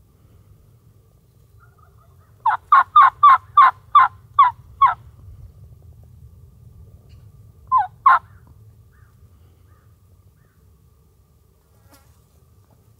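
Turkey yelping: a quick run of eight loud yelps, then a short two-note call about eight seconds in.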